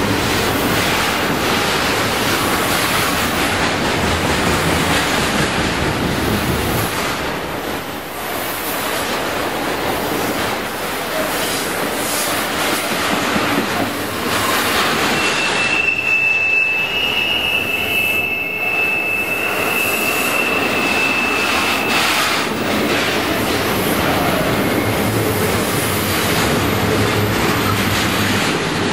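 CPR freight train of container cars rolling past close by: a steady rattle and rumble of wheels on rail. About halfway through, a high, steady wheel squeal holds for several seconds, then fades back into the rolling noise.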